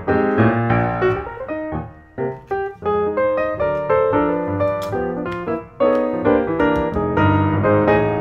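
Background piano music, a run of single struck notes that start sharply and fade.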